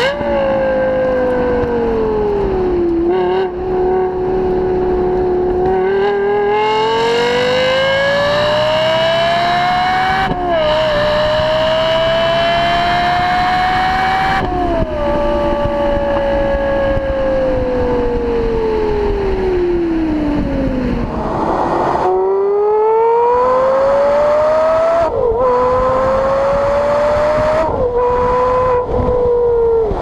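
Lexus LFA's naturally aspirated V10 heard at the exhaust while driving: the engine pitch climbs through the gears with a quick dip at each upshift, falls away steadily for several seconds as the car slows, then climbs again through two more shifts.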